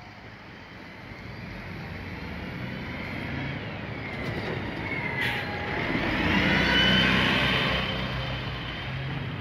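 Mercedes-Benz Citaro city bus driving past: its engine and tyre noise grow to a peak about seven seconds in as it goes by, then fade, with a high whine that slides in pitch during the pass. A brief sharp sound about five seconds in.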